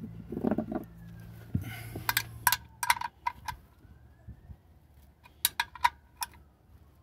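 Sharp metallic clinks of a combination wrench on an oil pan drain plug as the plug is tightened back in after draining. The clinks come in two short clusters: several a couple of seconds in, and a few more near the end.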